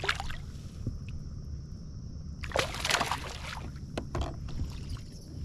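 Water splashing and sloshing at the side of a kayak as a caught bass is released back into the lake. The biggest splash comes about two and a half seconds in, with a smaller one a little later.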